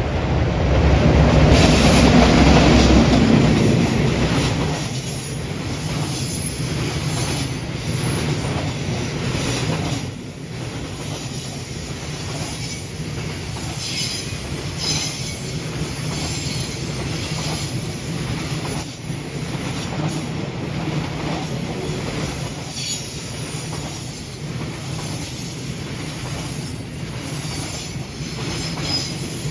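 JR Freight EF210 electric locomotive passing close by, loudest for a few seconds at the start, followed by a long freight train of wagons rolling past with repeated wheel clacks over the rails and brief high-pitched wheel squeals now and then.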